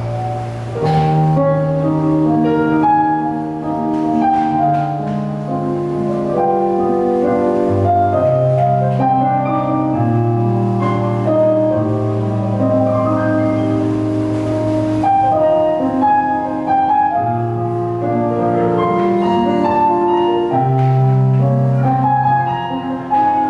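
Digital stage piano played solo: a melody over long held bass notes.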